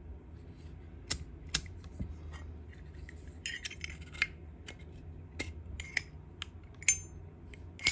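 Scattered sharp clicks and light metallic clinks of a Zippo lighter being handled, its metal case and lid knocking and ringing briefly, over a low steady hum.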